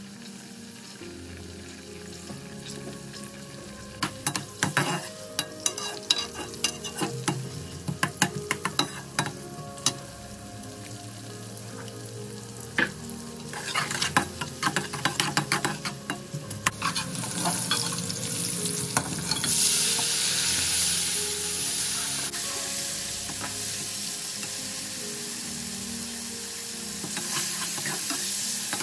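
Sliced onions and green chillies sizzling in hot oil in a metal pot, with a spatula clattering and scraping against the pot in bursts as they are stirred. About 17 seconds in, the sizzle becomes much louder and stays loud.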